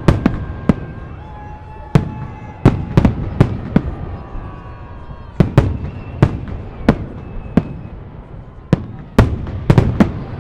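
Fireworks salute: aerial shell bursts going off in a rapid, irregular series, sometimes two or three in quick succession. Each bang trails off into a low rumbling echo.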